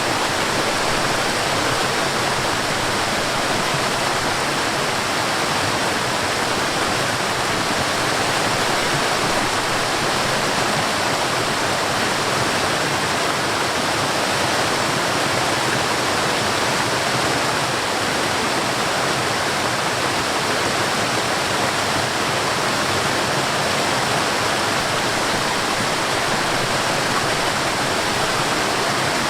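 Mountain stream and small waterfall rushing steadily, a dense unbroken wash of water noise.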